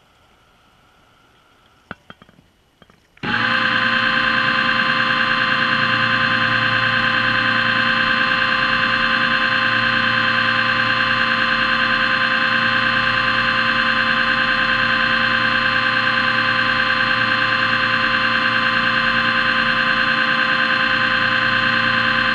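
Diver propulsion scooter's electric motor starting abruptly about three seconds in, after a few clicks, then running with a steady, unchanging whine and hum.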